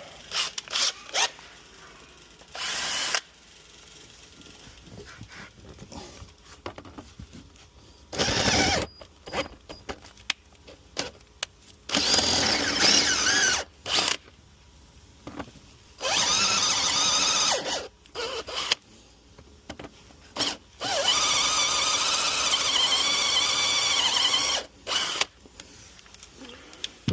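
Power drill running in several bursts of one to four seconds, the longest near the end, with small clicks and knocks between them. It is drilling out the remains of a broken spark plug in the cylinder head of a 5-litre MerCruiser V8.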